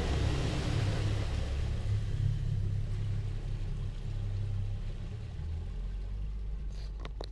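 Low, steady rumble of a Robalo 246 Cayman running on the water, engine and wind noise mixed, easing off somewhat toward the end. Two or three sharp clicks near the end.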